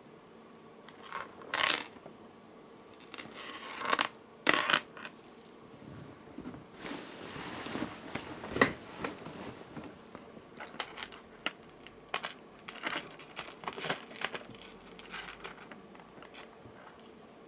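Small beads and metal jewelry findings clicking and rattling as they are handled, with short rustling scrapes in between. The clicks are irregular and scattered throughout.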